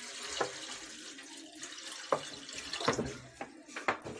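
Water pouring into a large aluminium cooking pot, a steady splashing rush as the pot fills, which fades out about halfway through. A few sharp clicks follow as the flow stops.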